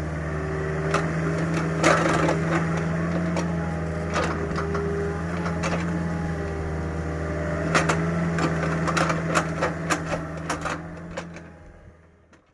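Mini excavator engine running steadily while wood cracks and splinters in repeated sharp snaps as the bucket tears at an old tree root. The cracks bunch up about two seconds in, around four seconds, and in a fast run near the end before everything fades out.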